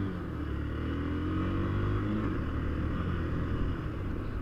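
Honda CBX 250 Twister's single-cylinder four-stroke engine running while ridden, its pitch rising through the first couple of seconds as it picks up speed, then holding steadier.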